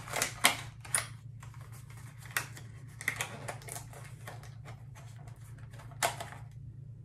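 Paper packaging of a lip balm being handled and opened: scattered crisp clicks, taps and rustles, most of them in the first second and a few more later, over a steady low hum.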